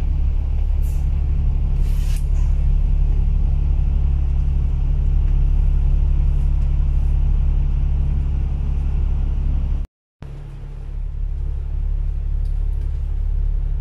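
Double-decker bus engine and running gear making a steady low rumble, heard from inside the bus, with a short hiss about two seconds in. The sound cuts out for a moment about ten seconds in and then resumes.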